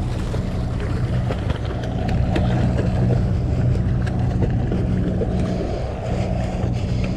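Sportfishing boat's engine running, a steady low hum, with wind on the microphone and water splashing at the rail as a hooked fish thrashes at the surface.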